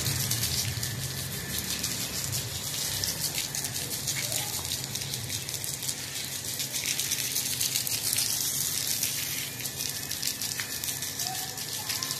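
Water spraying from a garden hose onto wet, muddy soil: a steady hiss of spray and splashing, keeping on without a break.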